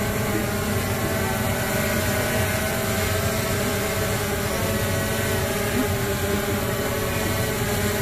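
DJI Phantom quadcopter's motors and propellers whirring steadily: a hum of several tones at once that waver slightly in pitch as the rotors change speed.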